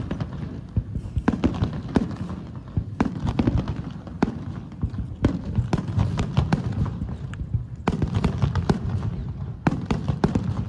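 Aerial fireworks shells bursting in quick succession: many sharp bangs, several a second, overlapping on a continuous low rumble.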